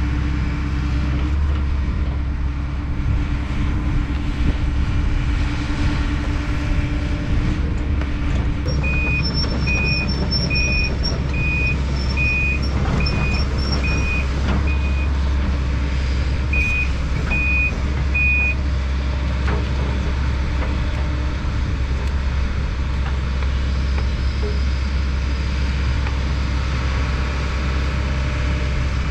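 Kobelco SK210 excavator's diesel engine running steadily, with a high warning beep sounding about a dozen times, a little over once a second, in two runs starting about a third of the way in: the machine's travel alarm as it tracks.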